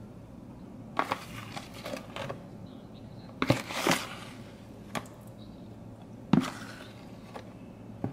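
Scattered knocks and clatters of kitchen items being handled and set down during food preparation: about half a dozen separate hits, the longest a short clatter about three and a half seconds in.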